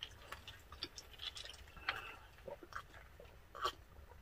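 Faint close-up mouth sounds of drinking from glasses: scattered small clicks, sips and swallows.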